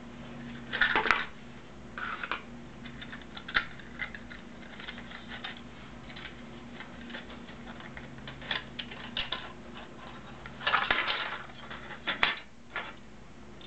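Hard plastic model-car parts and clear plastic packaging handled: irregular clicks, taps and crinkles as the pieces are pulled apart and freed from twist ties. The loudest bursts come about a second in and again around eleven seconds, over a faint steady hum.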